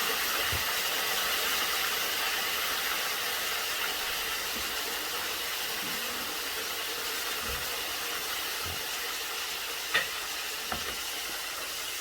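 Sliced plantain frying in hot oil in a pan: a steady sizzle that slowly dies down, with a sharp tap about ten seconds in.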